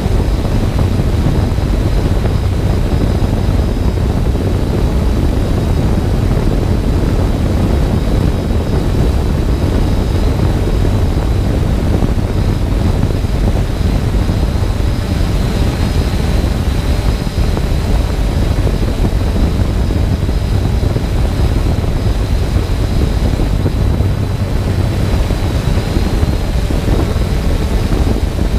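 A multirotor drone's motors and propellers running steadily as it hovers, heard up close from the camera on board, with a heavy low rumble and a thin steady high whine.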